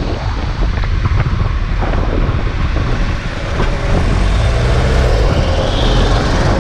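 Wind buffeting the microphone of a camera moving fast downhill: a loud, steady low rumble with a haze of rushing air and road noise.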